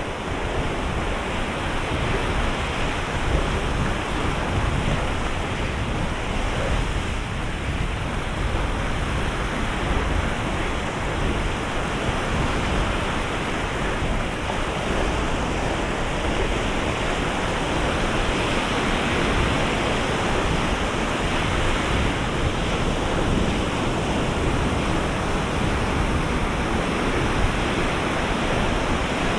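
Ocean surf breaking on a sandy beach, a steady rush of waves with no distinct single crash, with some wind on the microphone.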